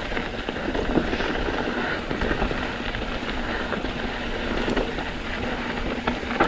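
Mountain bike rolling over a rocky trail: a steady rumble of tyres on rock and gravel, with the bike rattling and clicking over the bumps.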